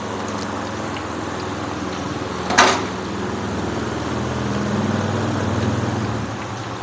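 Flour-coated chicken pieces deep-frying in a wok of hot oil, a steady sizzling and bubbling. A sharp, brief burst about two and a half seconds in is the loudest sound, and a low hum swells and fades in the second half.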